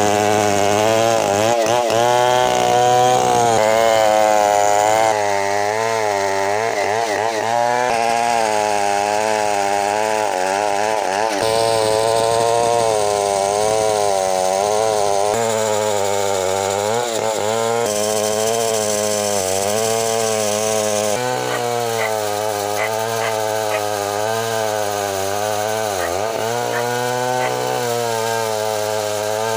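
Two-stroke chainsaw running under load, ripping lengthwise through a bengkirai hardwood slab; the engine note keeps wavering up and down as the chain bites and eases in the cut.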